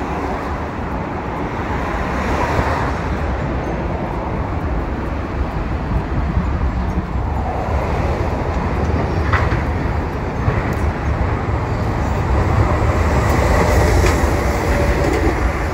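Hiroshima Electric Railway street tram rolling along its rails: a steady low rumble of wheels on track with a few sharp clacks. It grows louder, and is loudest near the end as a Green Mover LEX low-floor tram passes close by.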